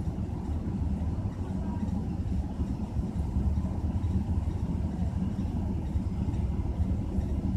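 Car engine idling steadily, heard from inside the cabin as a low, even rumble.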